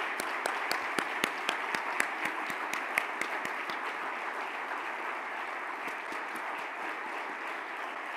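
A large audience applauding, with a few close, sharp claps standing out over the first three seconds before it settles into an even patter.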